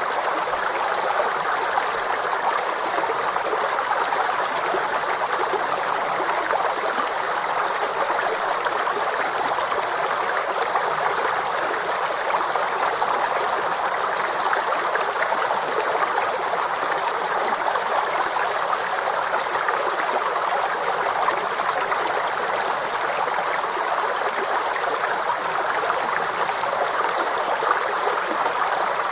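A water stream flowing over stones, a steady babbling and trickling that holds even throughout.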